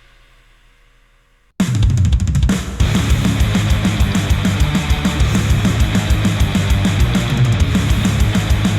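Heavy rock/metal music played back through a headphone and picked up by measurement microphones. A faint fading tail gives way about one and a half seconds in to the full band crashing in, with rapid bass-drum strokes and cymbals.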